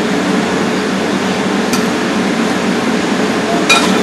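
Steady rushing of a commercial kitchen's ventilation, with a light click about halfway and a sharper, ringing clink of steel kitchenware near the end.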